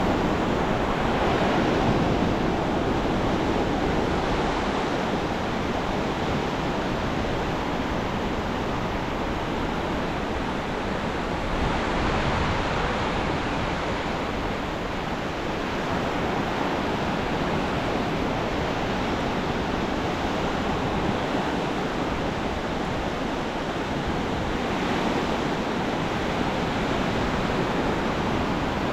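Ocean surf breaking and washing up a beach: a continuous rush of waves that swells and eases over several seconds.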